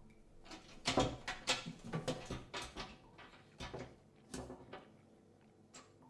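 Round metal doorknob on a panelled wooden door being turned and rattled, the latch clicking in a quick series of sharp knocks and rattles, with one fainter click near the end.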